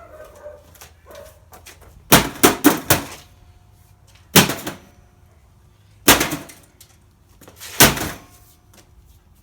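Heavy blows striking a computer, smashing it open: a quick burst of about four hits about two seconds in, then three single hits spaced a second and a half to two seconds apart.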